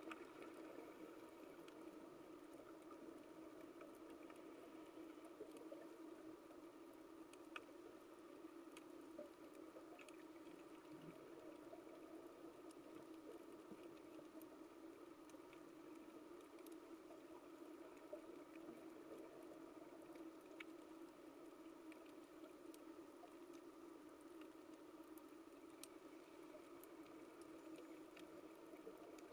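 Faint underwater coral reef ambience: a steady low hiss with scattered sharp clicks and crackles.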